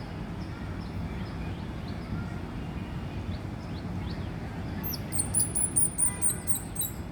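Baby squirrel giving a rapid run of very high-pitched squeaks, about five a second, starting about five seconds in, over a steady low background rumble.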